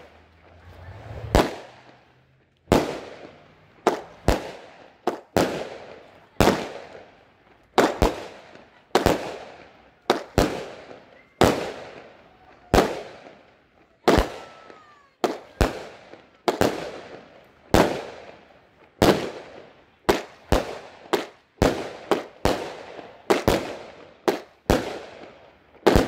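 Multi-shot firework cake firing shot after shot, a sharp bang with an echoing tail roughly once or twice a second, sometimes two in quick succession.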